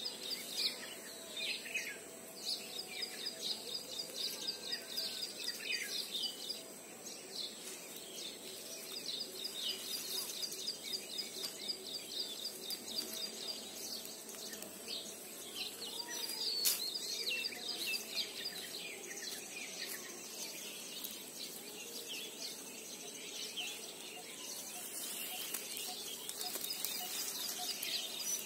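Small birds chirping and twittering continually, with rapid trills of repeated notes and short falling calls, over a faint steady outdoor hum and a thin steady high tone.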